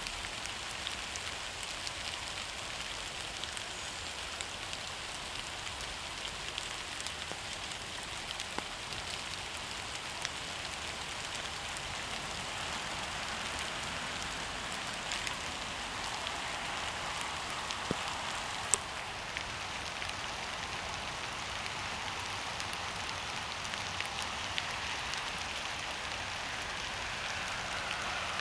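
Steady rain falling, an even hiss with scattered sharp drips.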